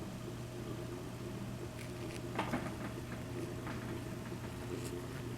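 Quiet room tone with a steady low electrical hum, and a few faint clicks and taps about halfway through.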